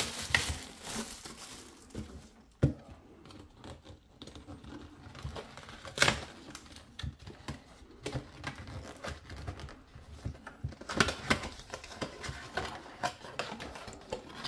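Clear plastic shrink wrap crinkling and tearing as it is pulled off a small cardboard watch box, in irregular crackles. A few sharp knocks come as the box is handled.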